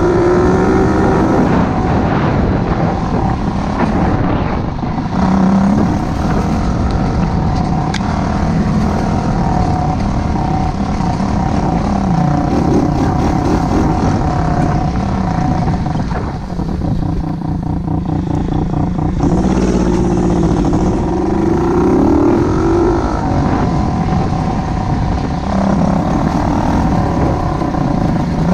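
90cc dirt bike engine running under way on gravel, heard from on board: the revs climb and fall again and again as the rider opens and closes the throttle. For a few seconds past the middle it drops to low revs with a slow, even pulse before picking up again.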